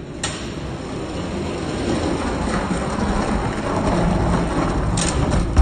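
Die-cast toy monster trucks rolling down an orange plastic Hot Wheels track: a steady rattling roll of small wheels on plastic that grows louder, with a sharp click just after the start and another near the end.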